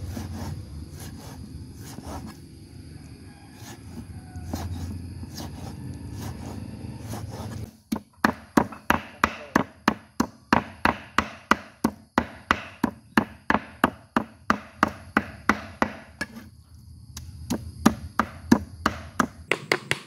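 Cleaver chopping pork fat on a round wooden chopping board. Softer, irregular cuts come first. About eight seconds in, steady rapid mincing starts at about four sharp strikes a second, broken by a short pause near the end.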